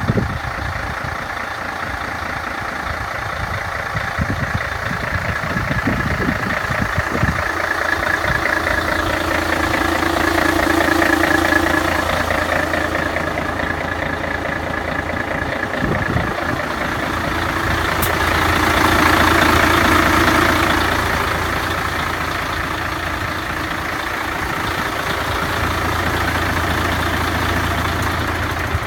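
Mercedes-Benz 2532 truck's diesel engine idling steadily, its sound swelling and fading gently twice.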